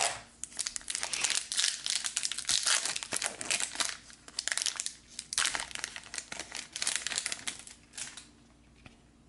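Plastic trading-card pack wrapper crinkling and tearing as it is ripped open and the cards pulled out. The crackling stops about a second before the end.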